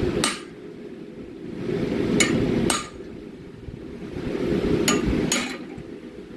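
Hammer striking steel in blacksmith forging: about five sharp metallic strikes, mostly in pairs about half a second apart, over a low rushing noise that swells and fades every couple of seconds.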